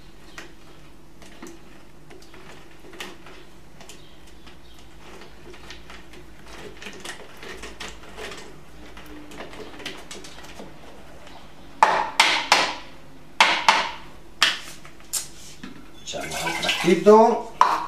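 Lemons being twisted by hand on a plastic citrus reamer, with faint squelches and light clicks. About twelve seconds in come several sharp knocks of the plastic juicer being handled. Near the end the juice is poured from the juicer bowl into a glass jug, with a gurgle that rises in pitch.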